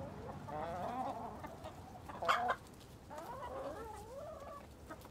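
Backyard hens clucking and murmuring in wavering calls while foraging, with one short, louder call about two and a half seconds in.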